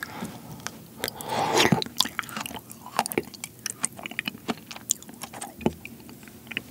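Close-up mouth sounds of eating frozen seedless persimmon (ice hongsi): a wet slurp as a spoonful is taken in about a second in, then chewing of the soft, jelly-like flesh with many small wet clicks and smacks.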